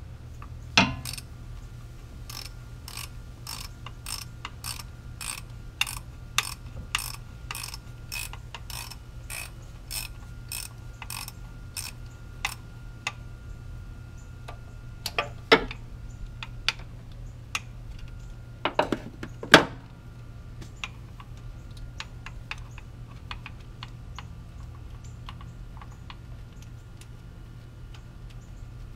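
Socket ratchet clicking in an even run of about three clicks a second as a 14 mm starter mounting bolt is turned, after a sharp knock about a second in. Then scattered clicks, with a couple of louder metal knocks past the middle.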